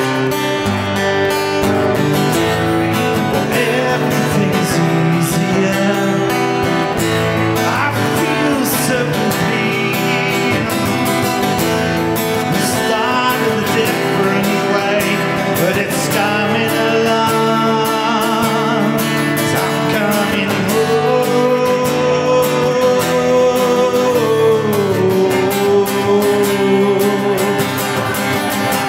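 Live music: a song in 5/4 time played with guitar, running steadily throughout.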